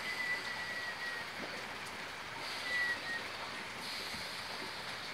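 Steady outdoor background hiss, with a thin high whistling tone that sounds faintly during the first second and again briefly about halfway through.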